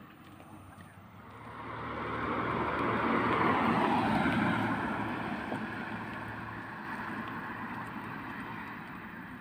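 An SUV driving past: its tyre and engine noise swells to a peak about three to four seconds in, then slowly fades away.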